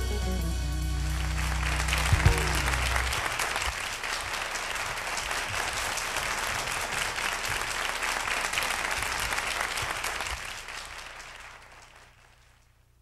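A live band's closing notes, a falling run ending on a held low note with a final hit about two seconds in, as audience applause swells and carries on alone, fading away about a second before the end.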